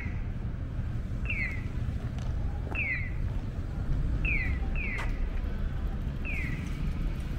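Audible pedestrian-crossing signal chirping: a short falling electronic chirp about every one and a half seconds, once in a quick pair, over a low steady rumble of street noise.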